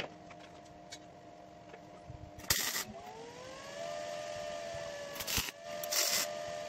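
Arc welder striking short tack welds on a steel frame: three brief bursts about a second or so apart. Under them runs a steady machine hum that rises in pitch for about a second just after the first tack.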